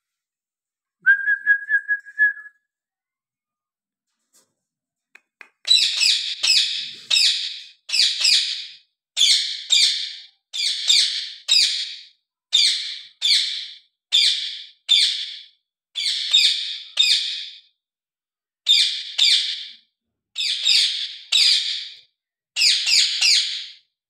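Green ringneck parrot (rose-ringed parakeet) calling: harsh screeching calls in quick clusters of two or three, repeated about every one and a half to two seconds. About a second in, a single steady whistle lasts about a second and a half.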